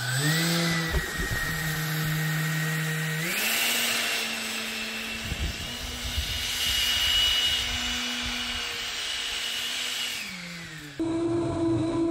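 Electric ducted fan of an RC boat whining, its pitch stepping up in two stages as the throttle is raised, held high, then winding down near the end. It then gives way abruptly to a different, lower, wavering whine.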